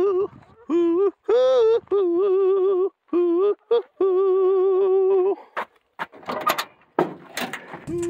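A person singing a wordless tune in phrases, with held notes that waver and slide between pitches. For the last few seconds the singing stops and there is a run of knocks, clicks and rustling.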